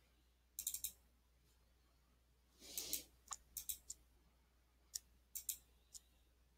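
Faint computer mouse clicks: a quick run of about four near the start, then scattered single and paired clicks through the rest, with a short rustle about three seconds in.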